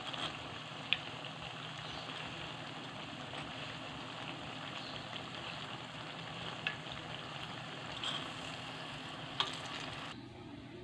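Battered banana fritters deep-frying in hot oil in a wok, a steady sizzle as they near doneness. A few sharp clicks come from metal tongs against the pan. The sizzling cuts off suddenly near the end.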